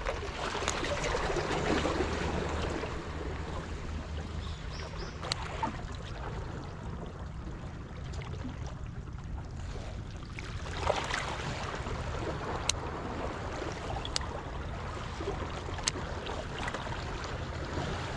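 Seawater washing and trickling among the boulders of a rubble breakwater, swelling about a second in and again about 11 seconds in. A few sharp ticks sound through it, and a low hum fades out within the first few seconds.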